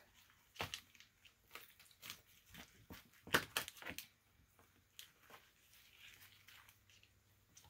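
Knife slicing through the crisp, spice-crusted exterior of a roast prime rib: faint irregular crackles and scrapes, loudest a little past three seconds in.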